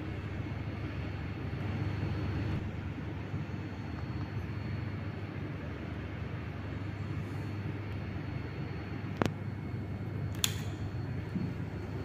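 Panasonic F-EY1511 60-inch industrial ceiling fan running steadily: a low hum under an even rush of air. Two sharp clicks come about a second apart, late on.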